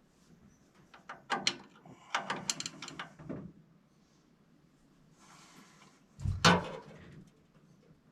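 A series of sharp clicks and knocks, then a louder knock about six seconds in, like parts or tools being handled and set down.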